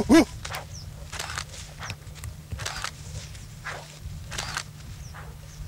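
Footsteps swishing through tall grass, one step roughly every half second to a second, over a low steady rumble. A short, loud pitched call is heard right at the start, the last of three.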